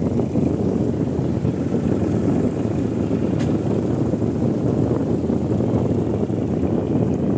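Boat engine running steadily, a loud even drone.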